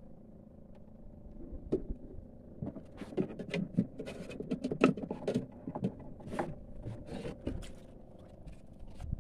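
Irregular knocks, taps and clatters of someone moving about a small wooden boat and handling fishing gear, busiest in the middle, over a faint steady hum.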